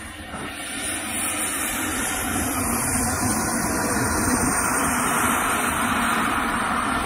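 Model turbine jet engine running as the RC jet taxis past: a loud hiss with a high, steady whine, growing louder about two seconds in as it comes close.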